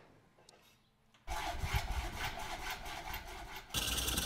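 Hacksaw cutting through 2-inch PVC pipe, starting about a second in with repeated back-and-forth rasping strokes. Near the end the sawing becomes denser and a little louder.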